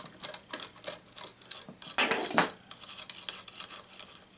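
Small metal clicks and rattles as a 10 mm nut driver turns off the propeller nut on a quadcopter's brushless motor shaft, with a louder clatter about two seconds in.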